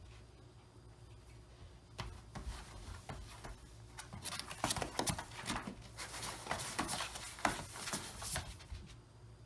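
Dog rummaging inside a cardboard box, its head, body and paws scraping and bumping against the cardboard: a run of scratchy rustles and knocks starting about two seconds in, thickest in the second half, then dying down near the end.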